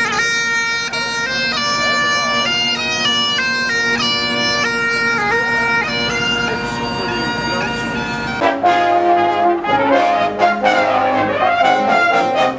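Bagpipes playing a marching tune over their steady drones; about eight seconds in, the sound switches abruptly to a brass band playing.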